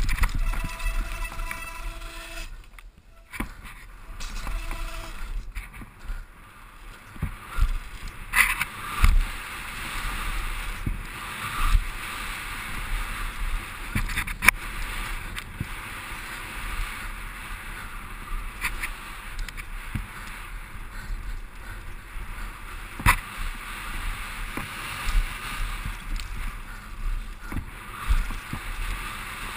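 Mountain bike descending a dirt trail, heard from a camera on the rider: a steady rush of wind and tyre noise with constant rattling and knocks from the bike over bumps, and several sharp thumps from harder hits. A pitched whine sounds during the first few seconds and breaks off twice.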